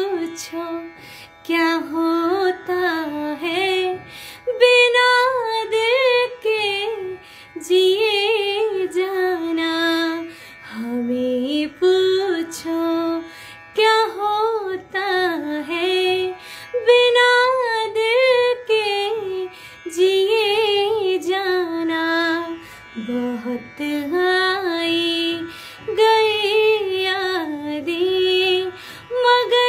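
A woman singing a slow Hindi song, with long held notes that waver and bend in pitch, sung in phrases of a few seconds with short breaths between.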